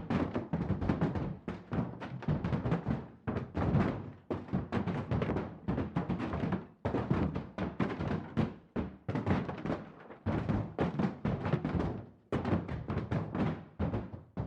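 Fists pounding on a wall: a rapid, irregular series of heavy thuds, several a second, in runs broken by short pauses.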